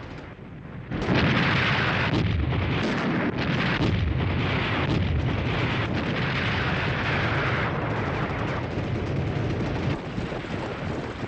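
Battle sounds: a sudden loud blast about a second in, then a continuous barrage of explosions and artillery fire with a heavy low rumble, rising in several surges and easing off in the last few seconds.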